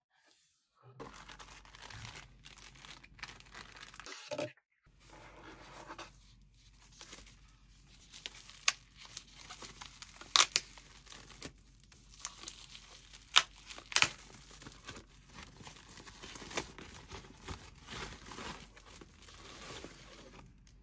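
Packaging being handled: a cardboard box being opened and a thin white protective wrap rustling and crinkling as it is pulled off the unit. Several sharp crackles come between about a third and two-thirds of the way through.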